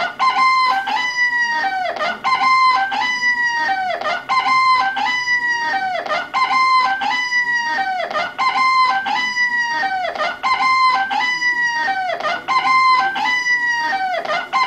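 A telephone-exchange voice announcement box playing a short recorded high-pitched call over and over through its speaker, about once a second, each repeat dropping in pitch at its end. It starts abruptly.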